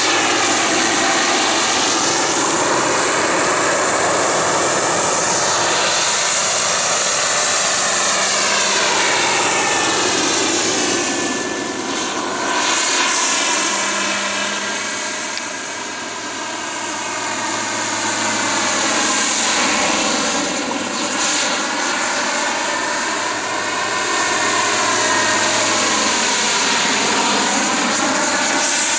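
Hughes 500 helicopter in flight: a steady engine and rotor whine whose pitch slowly rises and falls as it moves about. It grows fainter about halfway through and comes back louder near the end.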